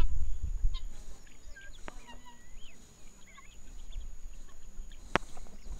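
Helmeted guineafowl giving faint short calls while foraging, over a steady thin high-pitched whine. There is a low rumble in the first second and a sharp click about five seconds in.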